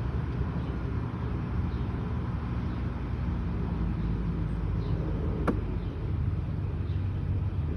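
Steady low rumble of a motor vehicle, with one sharp click about five and a half seconds in.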